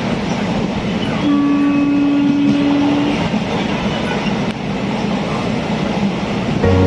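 Passenger train running, with steady rolling noise of the carriage. A horn sounds once for about two seconds just over a second in, and a low steady hum starts near the end.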